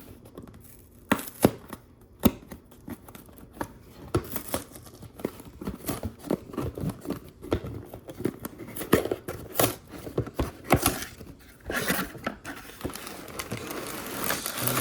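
A cardboard Lego box being torn open and the plastic parts bags inside handled. A few sharp snaps come in the first couple of seconds, then a steady crinkling of plastic bags that grows denser near the end.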